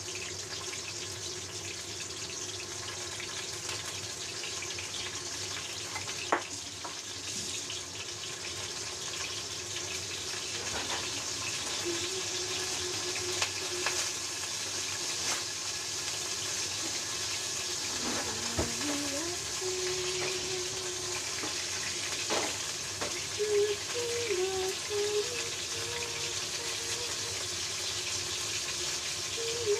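Flour-coated fish pieces shallow-frying in oil in a stainless steel wok, a steady sizzle throughout. A few sharp clicks against the pan come as the pieces are handled and turned with chopsticks.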